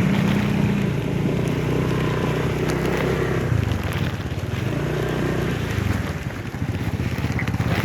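Motorcycle engine running while riding, its pitch changing a couple of times as the throttle shifts, with wind noise on the microphone.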